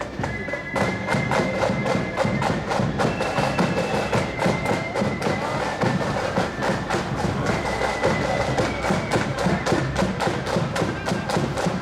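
Marching band playing a tune, a high melody line carried over rapid, steady snare drum strokes and bass drum beats.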